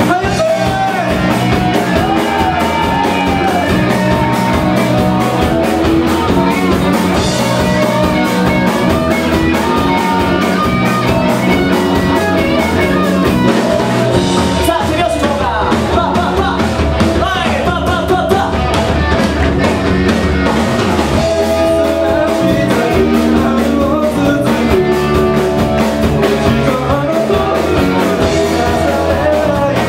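Live rock band playing at full volume: electric guitars, electric bass and drum kit, with a male lead vocal.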